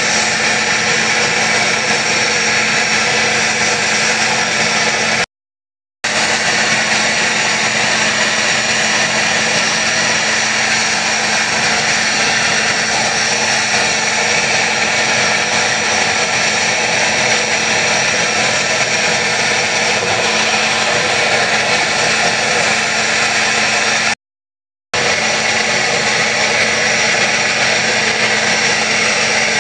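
Small engine-driven portable track tool running steadily under load on the rails, a continuous machine noise with a constant hum. The sound cuts out twice, each time for under a second.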